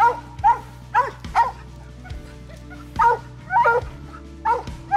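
Mountain cur barking treed at the base of a tree, about eight loud barks in quick bunches: the tree bark that signals raccoons are up the tree.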